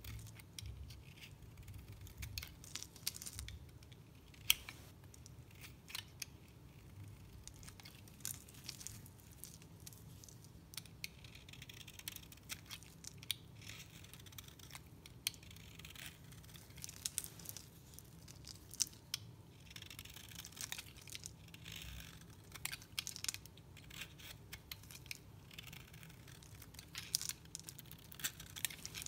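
Utility knife blade shaving flakes off a bar of dry soap held in the hand: an uneven run of crisp, crackly scrapes and crunches, with busier stretches of quick strokes.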